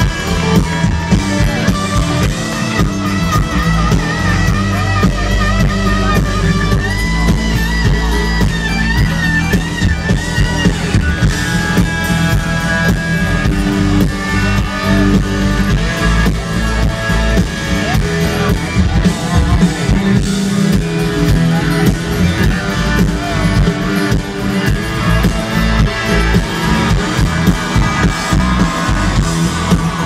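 A live country band playing an instrumental stretch through the concert PA: electric guitar, drum kit and bass, with wavering held notes from a fiddle.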